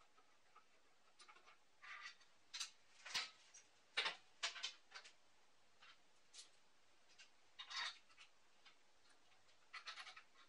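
Small steel parts clicking and knocking together as the pieces of a bench-grinder attachment are handled and fitted onto the grinder's tool rest: scattered light metal taps, busiest in the middle and again near the end.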